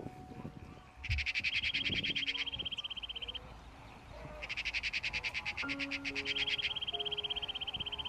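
Rapid, high-pitched pulsed trilling calls, in two bouts about a second in and again about halfway, each one running into a steadier high trill, over soft sustained low notes.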